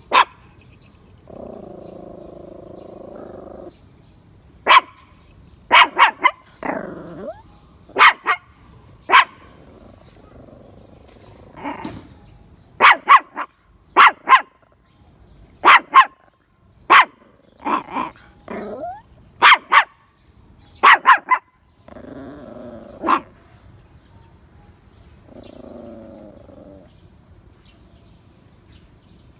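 A dog barking in short, sharp, loud barks, sometimes two or three in quick succession. Three longer, lower drawn-out sounds fall between them: near the start, about two-thirds of the way through, and near the end.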